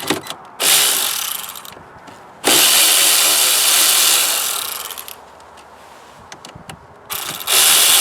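A power tool running in three bursts, each starting sharply and tailing off, as it spins off the 12 mm nuts on a battery terminal connector.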